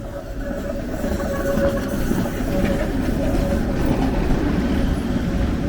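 A tram passing close by, its wheels rumbling on the rails with a steady whine. It grows louder over the first second or so.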